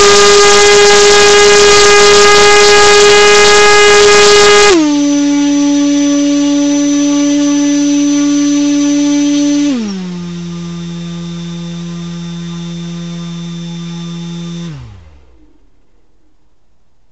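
Brushless 2206 2150kv drone motor spinning a 6x4.5 propeller, driven by a LittleBee 30A ESC. Its steady whine steps down in pitch and loudness twice as the throttle is cut back in stages, then winds down to a stop near the end.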